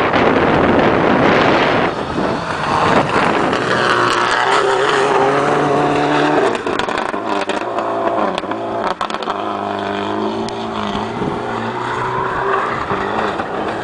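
Subaru Impreza rally car's turbocharged flat-four engine at full throttle as it passes close by on gravel and pulls away, its pitch climbing, dropping at a gear change about halfway through, then climbing again. A loud rushing noise fills the first two seconds.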